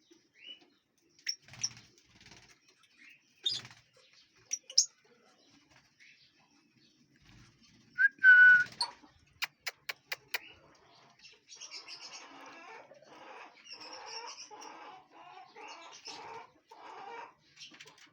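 Lovebirds calling: scattered sharp chirps, then a loud squawk about eight seconds in followed by a quick run of sharp clicks. From about halfway through, many birds chatter continuously over one another.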